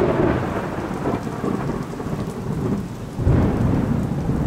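Thunderstorm: steady heavy rain with rolling thunder, and a louder rumble of thunder swelling about three seconds in.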